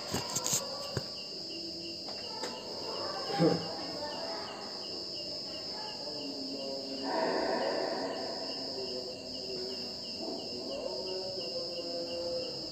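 Night insects chirping: a steady high trill with a regular, rapidly pulsing chirp, over a faint background murmur that rises a little about seven seconds in.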